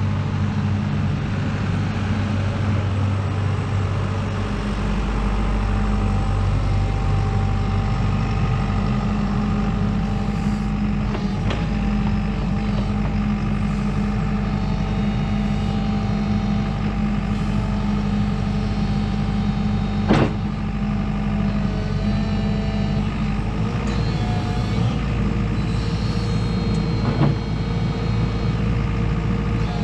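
JCB JS145WT wheeled excavator's diesel engine running steadily while the machine slews and works its boom, arm and bucket; the engine note changes about four seconds in. Three sharp metallic knocks come through, the loudest about twenty seconds in.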